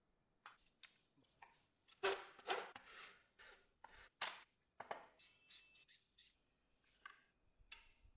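Irregular scraping strokes of a hand tool filing a clamped stack of metal plates, loudest about two seconds in, with a brief thin squeal midway.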